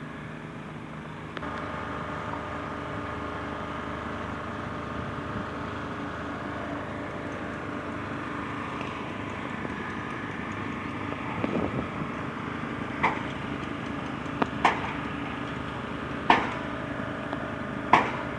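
Road construction machinery engine running steadily. In the second half, a series of sharp knocks rings out over it, about one every second or two, from work on the site.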